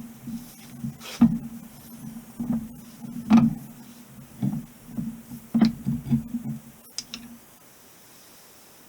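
Metal driveshaft parts clinking and knocking as a U-joint is worked into its tube: a string of irregular sharp knocks, a few of them loud, with a low hum running along with them. It stops about seven and a half seconds in.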